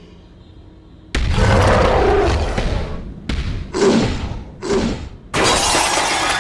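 Edited sound effects of loud crashes: after about a second of quiet a sudden heavy crash with rumbling, two shorter blasts, then another loud crash near the end.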